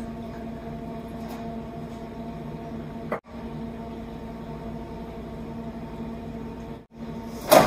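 Steady mechanical hum of a kitchen appliance running, with a low drone and a few higher tones. It cuts out briefly twice. At the very end comes a loud metallic clank from the metal sheet pan being handled.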